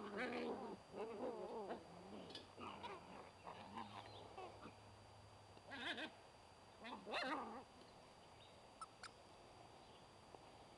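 Puppies play-fighting, giving whines and yelps in short bursts: a cluster over the first two seconds, then two more around six and seven seconds in.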